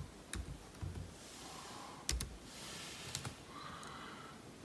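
Faint keystrokes on a MacBook Air keyboard: a few slow, unevenly spaced key clicks as a short command is typed.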